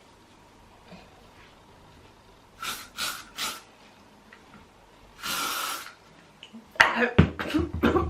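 Aerosol hairspray sprayed in three short bursts and then one longer blast, followed near the end by loud coughing and spluttering from breathing in the spray.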